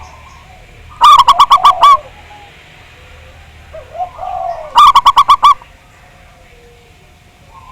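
Zebra doves (perkutut) cooing: two loud runs of about seven quick notes each, one about a second in and one about five seconds in, with fainter coos from other doves between them.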